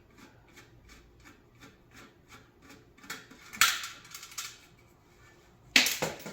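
Screwdriver ratcheting in steady clicks, about three a second, as the last screw of a coffee warmer is backed out. Then loud clattering of loose stainless-steel parts, twice: about three and a half seconds in and near the end.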